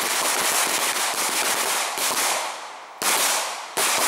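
Several handguns firing on a range line in rapid, overlapping shots, a dense crackle of gunfire that fades out about two seconds in; then two more sharp bursts of shots come near the end.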